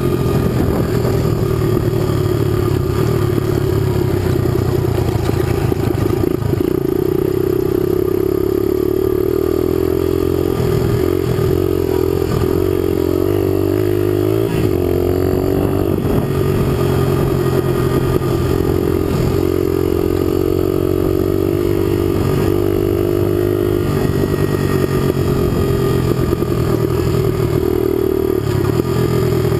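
Dual-sport motorcycle engine running under way, heard close from the rider's own bike. Its pitch rises and falls with the throttle, most noticeably in the middle stretch.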